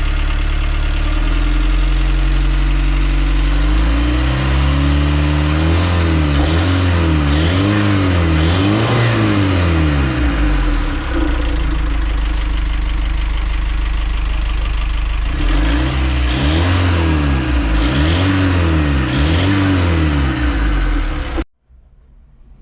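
Mitsubishi L300 Euro 4 four-cylinder common-rail turbo-intercooled diesel engine idling, then blipped through two series of quick revs, about four or five each, with idling between, before the sound cuts off abruptly near the end.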